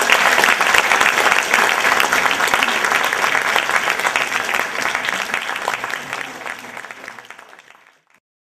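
Audience applauding, a dense patter of many hands clapping that fades out over the last few seconds.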